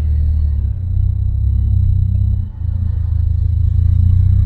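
Low engine and road rumble inside the cabin of a Proton Saga FLX driving uphill. The rumble shifts in pitch a little under a second in and dips briefly about two and a half seconds in.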